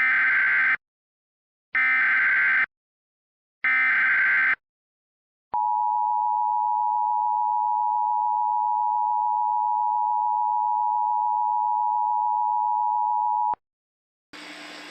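Emergency Alert System alert tones. Three short screeching data bursts (the SAME header), each just under a second long, are followed by the two-tone attention signal, held steady for about eight seconds before it cuts off. A quieter steady background bed comes in just before the end.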